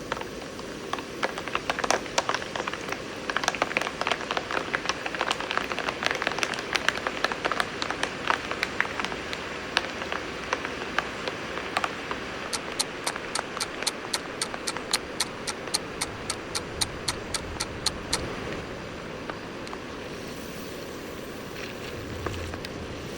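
Soybeans frying in a pan: a steady sizzle under many sharp pops and crackles, densest in the first half. From about halfway, a quick even run of clicks about five a second lasts some six seconds before the sizzle carries on alone.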